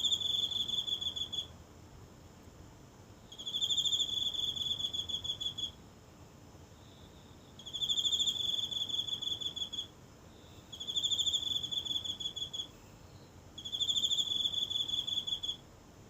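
A single cricket singing: pulsed trills at one steady high pitch, each about two seconds long, repeated five times with short pauses between.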